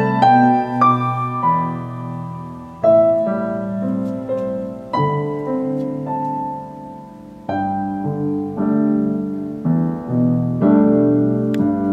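Piano interlude from a recorded Mandarin ballad, with slow sustained chords and new notes struck about once a second, played back through a Luxman LUXKIT A3500 tube amplifier and Celestion SL6si speakers.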